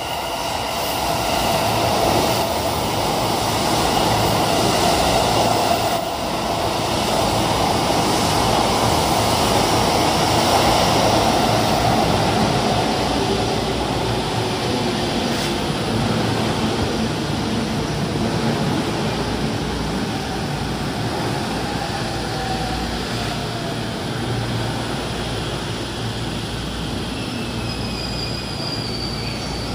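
Yellow-striped Chuo–Sobu Line local commuter train running into the platform and slowing: a steady rumble of wheels on rails, loudest in the first half and slowly fading. In the last third, thin tones slide down in pitch as the train slows.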